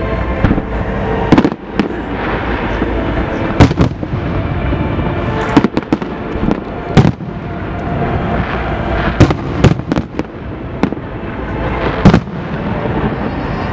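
New Year's fireworks going off: repeated sharp bangs of bursting shells over a continuous crackling rumble.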